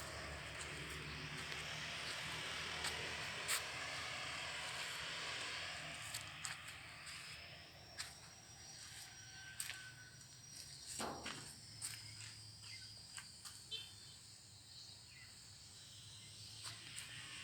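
Quiet outdoor background noise with scattered sharp clicks and light knocks over a faint low hum. A faint thin high whistle is held for several seconds in the middle.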